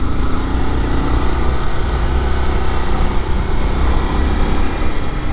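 Motorcycle engine running steadily under way, with wind and road noise over the microphone.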